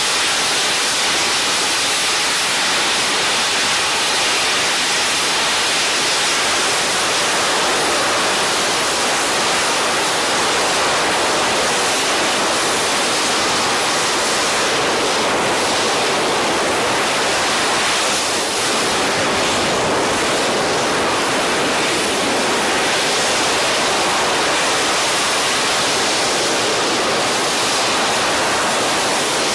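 RS-25 liquid-hydrogen/liquid-oxygen rocket engine firing on a test stand. Its roar is played at ten times speed, so it comes out as a steady, even hiss with little bass.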